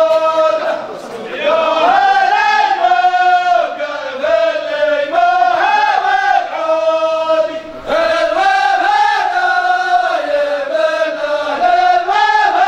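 A group of men chanting verses in unison, a traditional wedding welcome chant, in long drawn-out phrases with short breaks between them.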